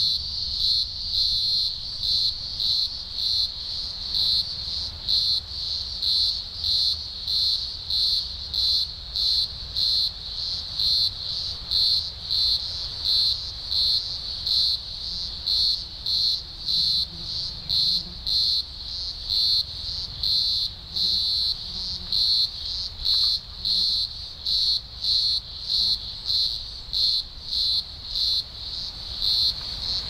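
A dense chorus of green grocer cicadas (Cyclochila australasiae), thousands singing at once as a loud, shrill drone. It swells and fades in a steady rhythm, a little over once a second.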